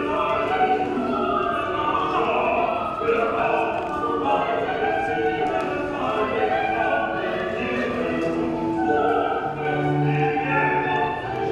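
Background music: classical operatic singing with many overlapping held notes.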